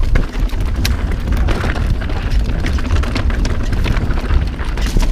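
A mountain bike descending a dirt singletrack at speed: wind buffets the camera's microphone in a constant low rumble, while the tyres on loose dirt and rocks and the rattling bike make frequent sharp clicks and clatters.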